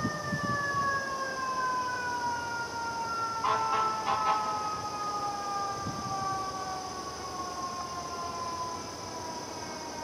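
A siren wailing: its tone, with a second tone above it, glides slowly down in pitch after a quick rise just before, over a steady high-pitched drone.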